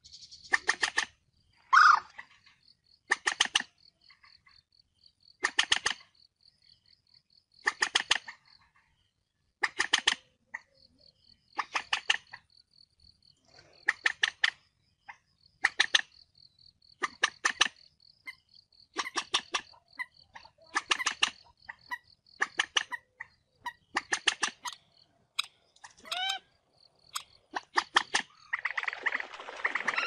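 Common moorhen (Gallinula chloropus) giving its harsh fighting call: short, rapidly pulsed calls repeated every one to two seconds, over a faint steady high-pitched trill like an insect's. Near the end the calls run together into continuous calling.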